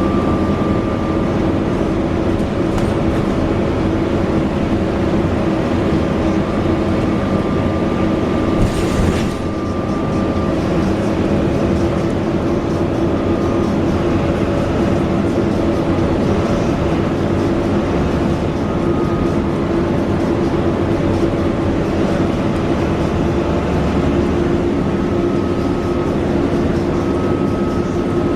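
Alexander Dennis Enviro400 double-decker bus heard on board while moving: a steady engine and running drone with a high whine that comes and goes. A short hiss about nine seconds in.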